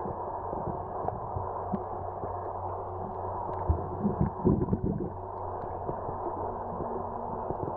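Muffled underwater ambience picked up through a waterproof compact camera's sealed body: a steady low rush of water, with a cluster of louder low thumps about four to five seconds in.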